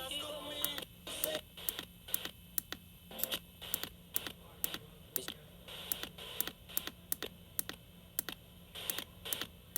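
Irregular sharp clicks and taps, a few a second, over a faint steady low hum.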